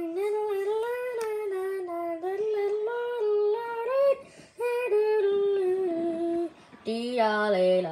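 A high voice sings or hums a wordless tune, with short breaks about halfway through and again later. Near the end a lower voice comes in, singing.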